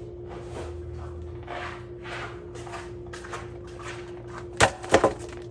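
Handling noises with soft rustling, then three sharp knocks in quick succession near the end, like a cupboard or door being shut.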